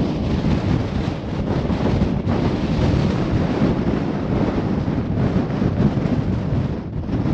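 Strong wind buffeting the microphone, a loud, gusting rumble.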